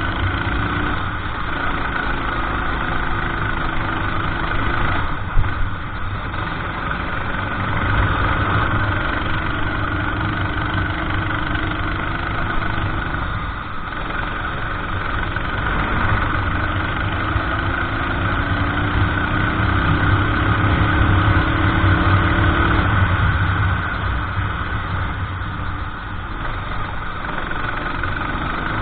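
Racing kart engine running hard. Its pitch climbs for several seconds as it accelerates, then falls away when the throttle lifts, several times over. A brief sharp knock about five seconds in.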